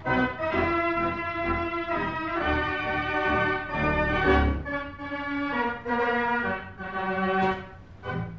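Theatre organ playing a silent-film accompaniment: held chords and a moving melody over low bass notes, with a short upward glide near the end.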